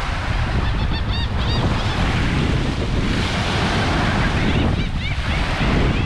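Small waves washing up on a sandy beach, with wind buffeting the microphone. Short high chirping calls come in two brief clusters, about a second in and again near the end.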